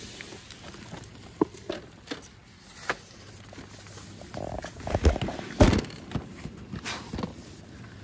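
Irregular clicks and knocks of handling cardboard product boxes on a shop shelf, with two louder thumps a little past the middle.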